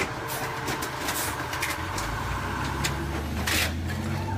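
A vehicle engine running at idle amid street noise, a steady low hum that grows stronger in the second half, with scattered short clicks and knocks.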